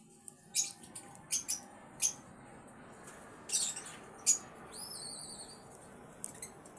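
Caged pet birds giving short, sharp, high chirps at irregular intervals, with one brief warbling whistle about five seconds in.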